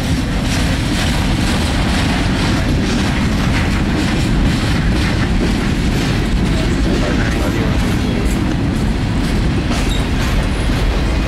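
A freight train's cars rolling slowly past on steel wheels: a steady low rumble with a run of clicks as the wheels pass over the rails.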